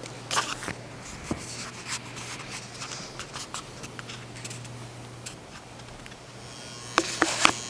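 Scattered light rustles and small knocks over a low steady hum, with a few sharp clicks close together about seven seconds in.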